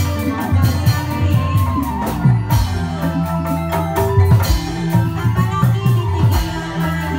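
Live Indramayu reog accompaniment: mallet-struck metallophones ringing a melody over drums that keep a steady beat.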